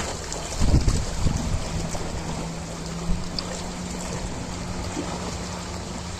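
Ocean waves washing and breaking, with a few heavy low thuds about a second in and a steady low hum from about two seconds in.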